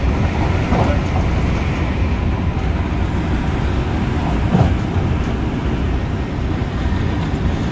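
MTR Tung Chung line CAF train running on the track, heard inside the carriage: a steady rumble with two brief knocks, about a second in and about four and a half seconds in.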